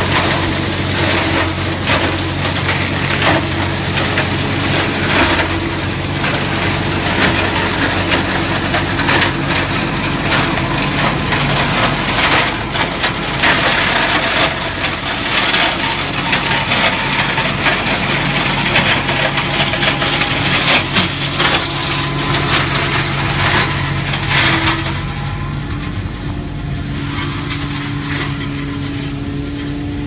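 Tractor engine running steadily while a tractor-mounted branch shredder crunches and cracks pruned orchard branches. Near the end the crackling dies away and the engine runs on alone.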